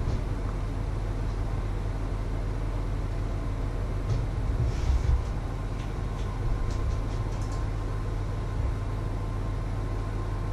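Steady low machine hum with a faint thin high tone running through it, and a few light clicks and taps about halfway through.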